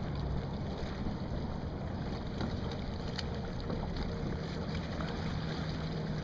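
A boat motor running with a steady low hum, over a haze of wind noise on the microphone.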